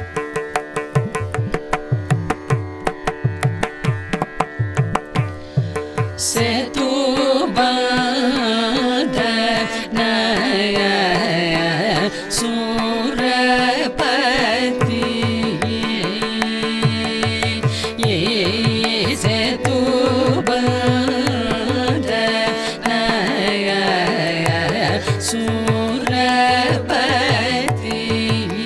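Carnatic classical music in raga Kharaharapriya. Rapid mridangam strokes play over a steady tambura drone, and about six seconds in a woman's voice enters, singing with sliding, ornamented notes while the drum keeps playing.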